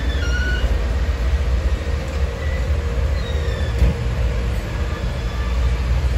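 Train rolling along the rails with a steady low rumble. Steel wheels squeal thinly against the rail in the first second, with fainter squeals a couple of times later on.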